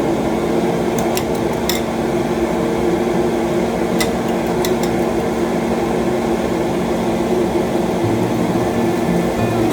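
Steady fan hum with a few light clinks of cookware, a cluster about a second in and another around four seconds.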